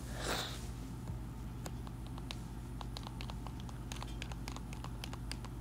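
Quiet background with a steady low electrical hum, a short breathy rush at the start, and scattered faint, irregular clicks.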